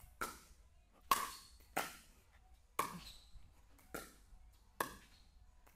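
Pickleball rally: paddles striking the plastic ball in six sharp pops, about one a second, each with a short echo.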